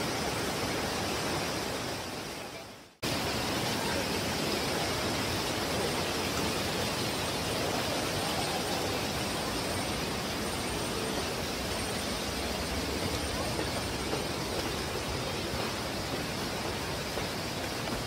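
Shallow rocky river rushing over stones, fading out about three seconds in. Then a steady rushing hiss returns abruptly and runs on, with a faint thin high tone coming and going.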